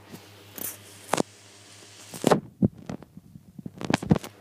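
Rustling, scraping handling noise from the hand-held recording device being moved about, in several short scratchy bursts with a couple of sharp knocks, over a faint steady low hum.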